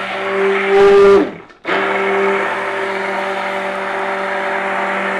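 Electric stick blender running in a large stainless steel pot of cold-process soap batter, a steady motor hum. It swells, cuts out for a moment about a second in, then starts again and runs steadily.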